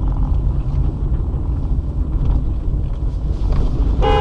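Steady low rumble of a moving vehicle's engine and road noise picked up by a dash camera, with a short pitched tone starting near the end.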